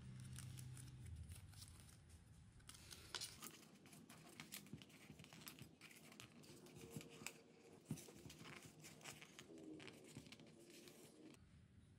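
Faint rustling of a paper ring and light taps as fingers press it down onto a speaker cone around the dust cap, starting about three seconds in and stopping near the end.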